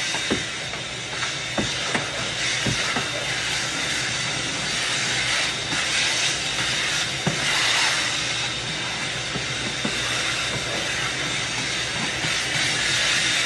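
A steady hissing rush of noise, with a few light knocks and clicks scattered through it.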